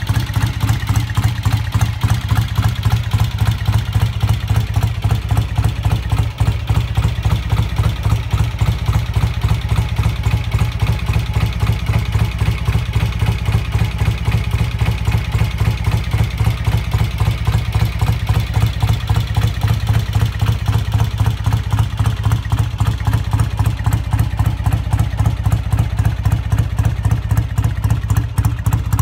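1970 BSA A65 Lightning's 650cc parallel-twin engine idling steadily, with an even pulsing beat that does not change speed.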